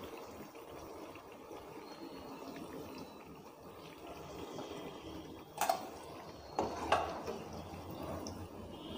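Semolina malpua frying in hot oil with a faint, steady sizzle, and oil dripping back into the pan off a perforated steel skimmer as each one is lifted and drained. Two short knocks of the skimmer against the pan, at about five and a half and seven seconds in.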